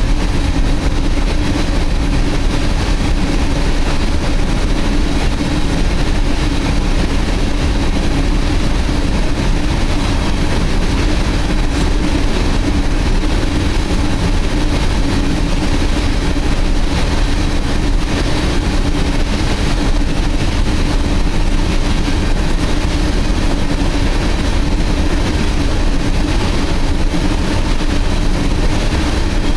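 Empty open-top ore cars of a long freight train rolling past: a steady, unbroken rumble of steel wheels on rail.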